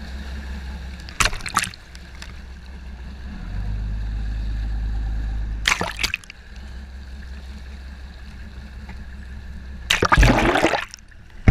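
Sea water splashing and gurgling around the camera, in three bursts, the longest and loudest near the end, over a steady low hum.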